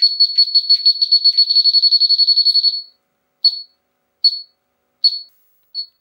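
Elitech LD-200 heated-diode refrigerant leak detector sounding its leak alarm: rapid high beeps, about nine a second, which signal that a halogen level above the reset background has been detected. Just under three seconds in the rapid alarm stops and the detector falls back to its normal slow beeping, single beeps a little under a second apart.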